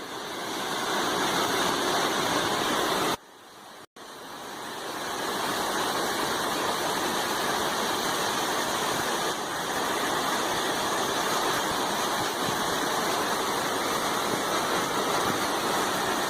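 Waterfall rushing in a steady roar. It cuts out briefly about three seconds in, then fades back up.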